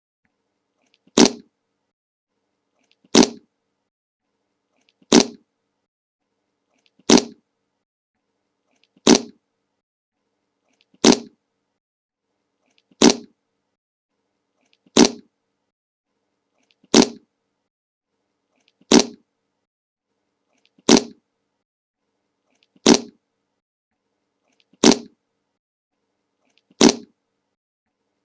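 The same short fart sound effect repeated at an even pace, about once every two seconds, fourteen times, with silence between each one.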